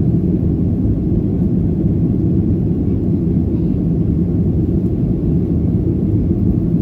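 Cabin noise of a jet airliner in flight: a steady, low, even rush of engine and airflow sound heard from inside the cabin.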